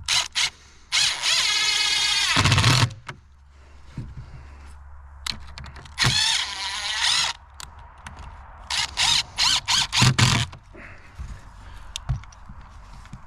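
Power drill driving a screw into the fence wood. A long run from about a second in slows and drops in pitch as it loads up, another run comes around six seconds, and then several short trigger bursts follow near ten seconds. The screw isn't grabbing.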